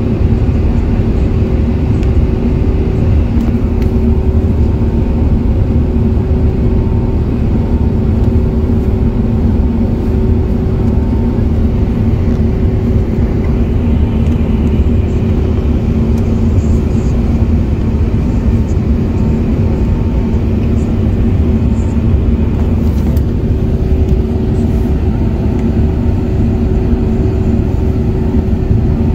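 Airbus A380 cabin noise in the climb after take-off: a steady engine drone and rush of air with a constant low hum.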